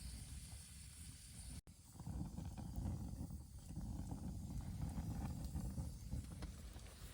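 Low, gusty rumble of wind on the microphone with a few faint ticks; the sound cuts out for an instant about one and a half seconds in, then the rumble comes back stronger.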